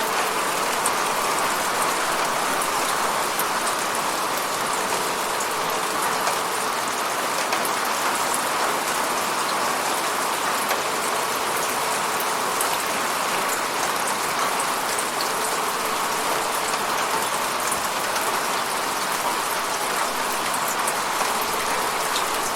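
Steady rain falling on a surface, an even hiss with fine drop patter throughout.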